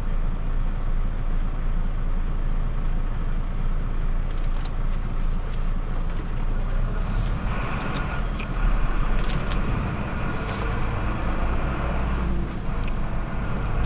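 Heavy truck's diesel engine heard from inside the cab, running steadily at idle, then working harder for a few seconds from about seven or eight seconds in as the truck pulls away.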